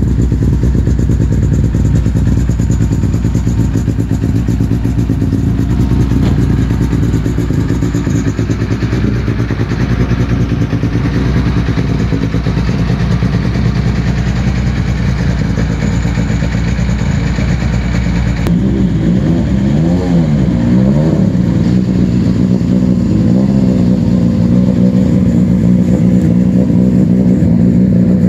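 Rally car engines idling with a lumpy, throbbing sound. About two-thirds of the way through, a different car's engine takes over, is revved up and down a few times, then settles back to a steady idle.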